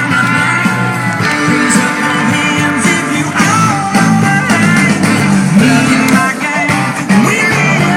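Rock-style song with a lead singer and guitars, playing loud and steady.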